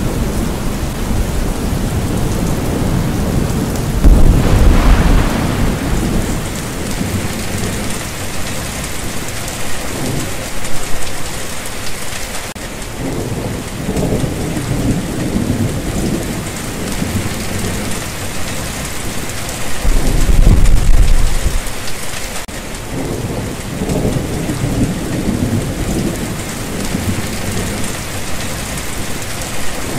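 Steady heavy rain with rolling thunder; the loudest rumbles swell about four seconds in and again around twenty seconds in.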